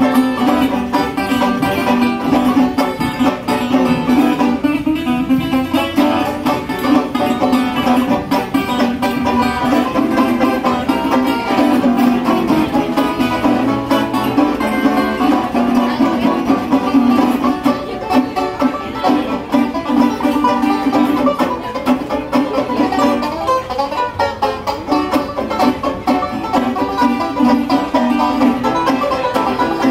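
Small acoustic string band playing an instrumental passage: banjo picking over a strummed resonator guitar and a smaller plucked instrument, in a bluegrass style.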